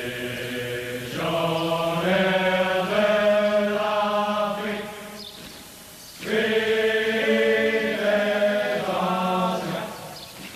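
Chanted vocal music on the soundtrack: slow sung phrases of long held notes, two phrases with a short break about halfway.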